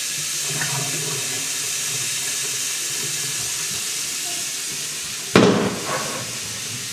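Water running from a mixer tap into a small washbasin as a child washes her hands under it, a steady hiss. About five seconds in there is a sudden loud noise that dies away within half a second, and then the water runs on.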